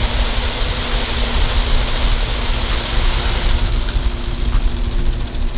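Split-flap message board clattering as its flaps spin through the letters. The rapid rattle thins to a few scattered clicks about three and a half seconds in, as the message settles. A steady low hum runs underneath.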